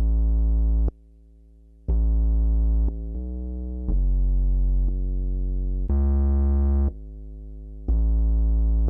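Synthesizer bass notes held about a second each, from a prepared test file whose loudness jumps between loud notes and much quieter ones, a wide dynamic range, still uncompressed.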